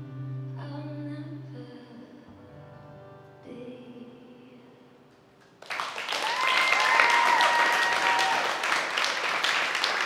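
The last acoustic guitar chords of a song ring and fade away. About six seconds in, an audience suddenly breaks into loud applause with cheers and whoops.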